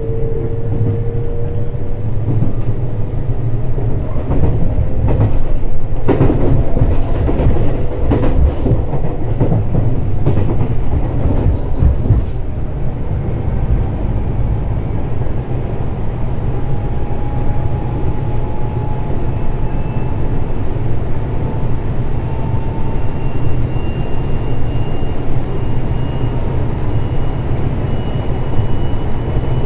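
Running noise of a JR West 521 series electric train heard inside the car: a steady rumble of wheels on rail, with the traction motors' whine rising slowly in pitch near the start and again through the second half. A few sharp knocks come from the track about six to twelve seconds in.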